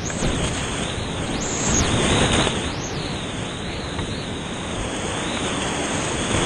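Steady roar of whitewater rapids heard from a kayak in the middle of a steep, boulder-strewn creek rapid, with water rushing and churning close around the boat.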